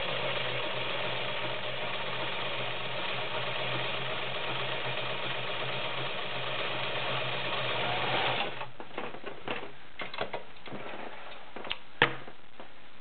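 White model 1510 domestic sewing machine running steadily as it sews a pine leaf stretch stitch, then stopping after about eight and a half seconds. Scattered handling clicks and rustles follow as the fabric is pulled out, with one sharp click near the end.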